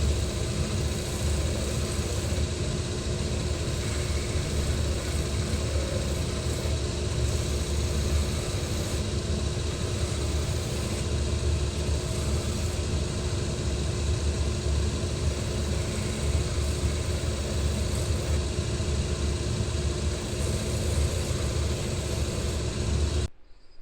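A motor-driven shoe-repair workshop machine running steadily with a low hum and a faint steady whine. The sound cuts off suddenly just before the end.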